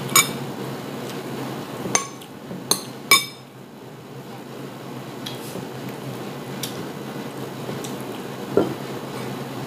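Metal cutlery clinking against a ceramic plate: four sharp clinks in the first three seconds and a few fainter ones after, over a steady low room hum.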